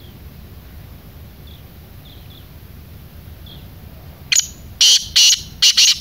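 Black francolin calling: a loud run of four harsh notes starting a little over four seconds in. A few faint chirps come before it.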